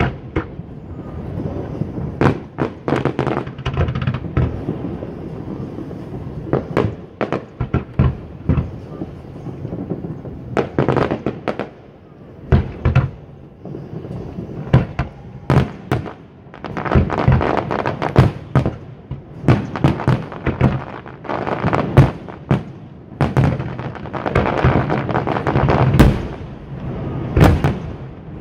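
Aerial fireworks bursting: an irregular run of sharp bangs and crackling. It thickens into two dense stretches of rapid crackle in the second half.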